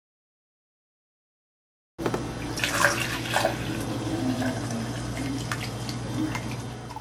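About two seconds of silence, then orange juice poured in a thin stream into a drinking glass, splashing as the glass fills.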